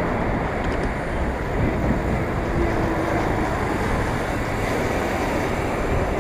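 Steady rush of wind on a bike-mounted action camera's microphone while cycling, with street traffic underneath.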